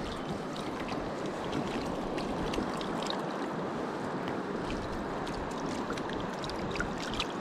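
Steady rush of a shallow river running over gravel, with a few faint short clicks.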